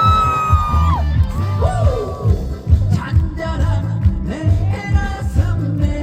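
Live trot song over a PA: a male singer with a band backing track and a steady thumping beat. A long high-pitched held cry stops about a second in.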